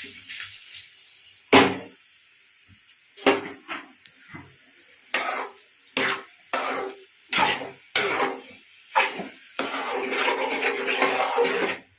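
A spoon knocking against a cooking pan about ten times, each knock ringing briefly, then a couple of seconds of continuous scraping as the curry in the pan is stirred.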